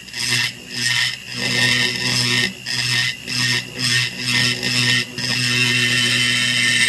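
Rotary grinder spinning a carbide burr, cutting into a Homelite XL922 chainsaw crankcase in a run of short passes with a steady motor hum and a grinding hiss that dips briefly between passes. This is trenching the transfer ports down into the crankcase to smooth the flow path.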